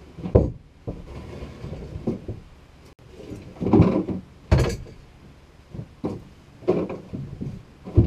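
Wooden knocks and thumps as a rough-sawn lumber frame is lifted, bumped and set down on a plank floor. About six irregular knocks, the loudest about halfway through.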